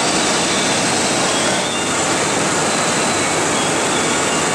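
Textile mill machinery running: a loud, steady, even din with a few faint high tones in it.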